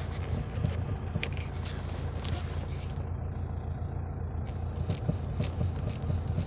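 Car steering intermediate shaft making scattered light clicks and knocks over the steady low hum of the running car. The noise is put down to the intermediate shaft, since it remained after the steering rack was replaced.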